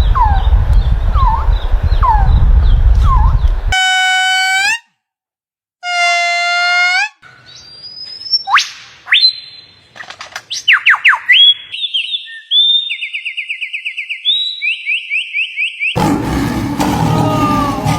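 A string of different animal and bird calls cut one after another: first a repeated chirp about once a second over a noisy background, then two short pitched calls, a run of whistles and sliding notes, a fast even trill, and finally a noisy stretch with more calls.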